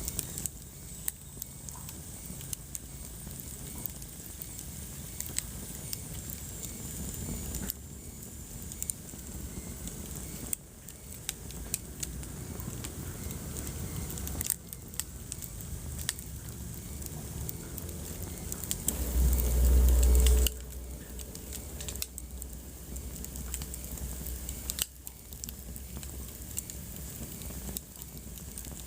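Wood fire crackling in a fireplace: scattered sharp pops and snaps over a steady low rumble. A little past the middle there is a louder low rumble lasting about a second and a half.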